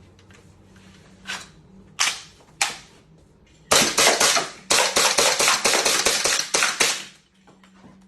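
Electric-cylinder foam dart blaster firing: three single shots, then a rapid string of shots at about five a second lasting around three seconds.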